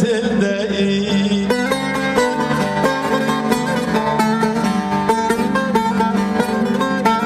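Bağlama (Turkish long-necked saz) played solo as an instrumental passage between sung verses: a few held notes, then from about a second and a half in a fast run of picked notes.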